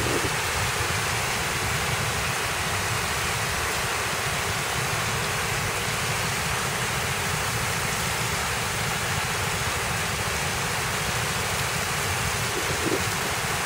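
Park fountain running: many water jets arcing and splashing into a stone basin, a steady, even rush of water.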